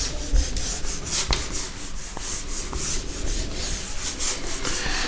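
Writing on a board: a run of short scratchy strokes as the characters are drawn, with a few light taps.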